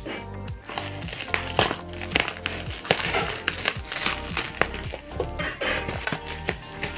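Bubble wrap around a box being squeezed and popped by hand: many sharp pops at irregular intervals, over background music.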